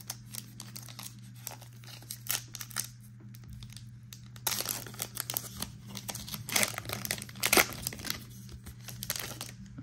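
Foil wrapper of a 2021-22 Donruss Basketball card pack crinkling and tearing under the fingers as a stubborn pack is picked at and ripped open. The crackling tear comes in two louder spells, about halfway through and again around three-quarters in.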